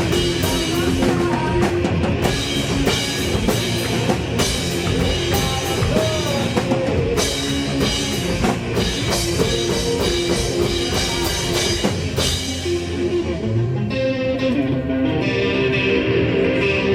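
Live rock band playing, with drum kit and guitar; about twelve seconds in the drums drop out and the guitar carries on alone.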